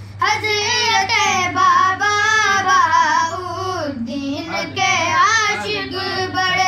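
A voice singing an Urdu manqabat, a devotional praise poem, in long melismatic phrases with wavering held notes, over a steady low hum.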